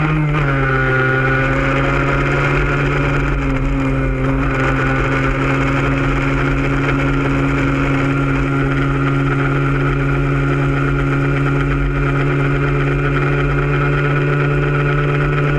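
Moped engine settling down in pitch about a second in and then idling steadily.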